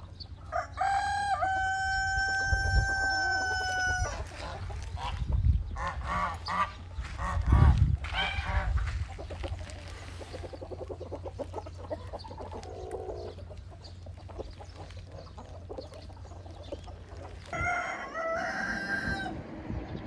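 A rooster crowing: one long, drawn-out call about a second in, then shorter calls and clucking, and another short crow near the end.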